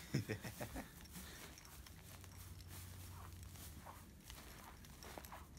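Faint rustling and crunching of loose hay underfoot, with a few short voice sounds in the first second.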